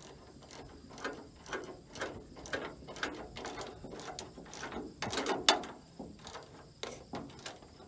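Ratchet wrench clicking in a run of irregular strokes, about two to three a second, as the bolts of a combine header's chain holder bracket are worked.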